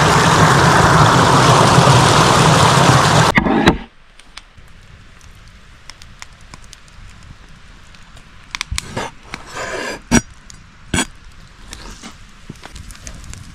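Loud, steady rush of running water that cuts off abruptly about three and a half seconds in. Then a much quieter stretch with scattered sharp clicks and knocks, several close together about two-thirds of the way through.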